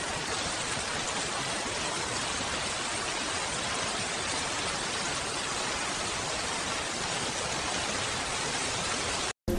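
Steady heavy rain, an even hiss with no drops or thunder standing out and no music over it. It cuts off suddenly near the end.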